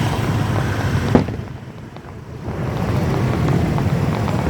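Fireworks booming and crackling in a dense low rumble, with one sharp bang about a second in. The rumble drops away briefly, then builds again.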